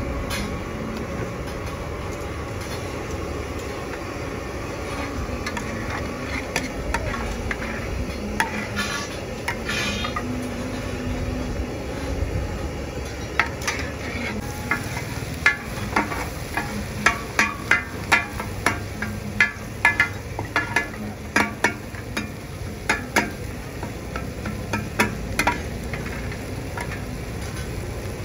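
Pad Thai ingredients sizzling in a large flat street-stall frying pan. From about halfway, metal spatulas strike and scrape the pan in a quick, irregular series of clanks.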